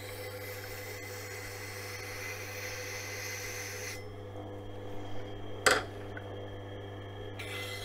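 Knife edge grinding with a steady hiss against the 1000-grit CBN wheel of a running Tormek wet sharpener. About four seconds in the knife comes off the wheel and only the machine's hum remains. Near six seconds there is one sharp knock, and the grinding hiss starts again near the end.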